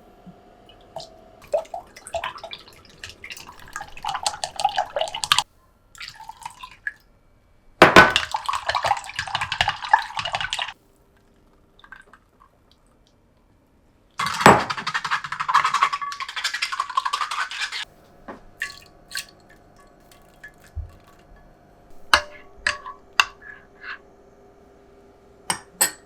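Kitchen tap water running in two bursts of a few seconds each, switched on and off sharply, with a shorter splashing stretch before them and light clicks of dishes afterwards.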